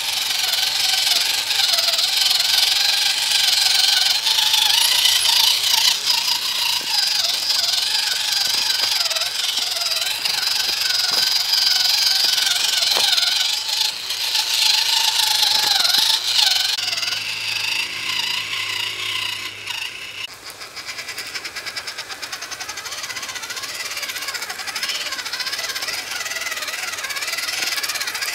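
The electric motor and gearbox of a WPL C24 1/16-scale RC truck whining as it crawls over loose stones with a load of rocks in its bed, with rattling from the chassis. The whine wavers in pitch with the throttle, then changes and drops off around two-thirds of the way through.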